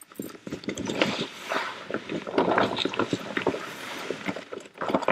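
Black plastic tarpaulin rustling and crinkling in an irregular run as it is pulled and folded back by hand.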